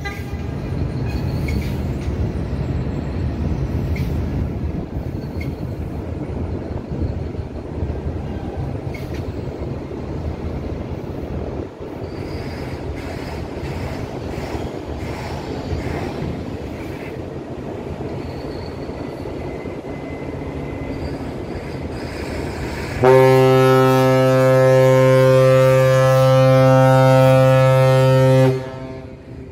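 A low, steady rumble, then about 23 seconds in a ship's horn sounds one long, loud, deep blast of about five seconds before cutting off.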